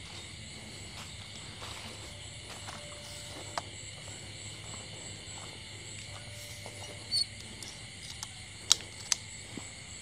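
Steady night insect chorus, crickets trilling in high unbroken bands. A few sharp clicks and snaps stand out, the loudest two close together near the end.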